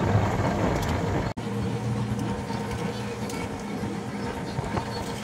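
A fishing boat's engine running with a steady drone. The sound cuts out for an instant about a second in.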